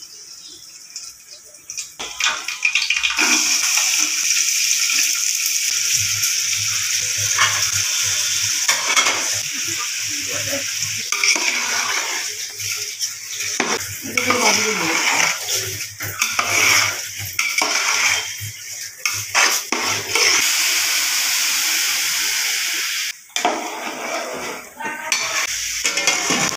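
Rice sizzling in hot oil in a large aluminium pot, with a metal spoon scraping and knocking against the pot as it is stirred. The sizzling starts a few seconds in and drops away sharply near the end.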